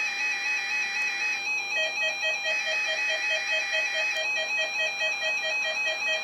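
Several weather alert radios sounding their alarms together for an Emergency Alert System weekly test: overlapping electronic alarm tones, each flipping rapidly between two pitches. About two seconds in, another radio joins with a fast beeping of about four or five beeps a second.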